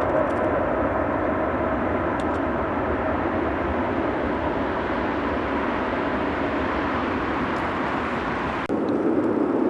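Jet airliner engines running with a steady, loud roar. The sound changes abruptly near the end.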